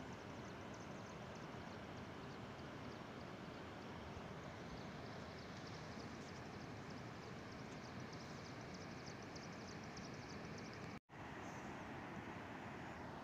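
Steady outdoor ambient noise with faint, rapid high-pitched ticking running through it, broken by a sudden brief dropout to silence about eleven seconds in.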